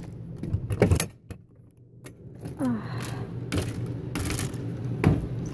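Scattered clicks and rattles around an open vehicle door, over a low steady hum.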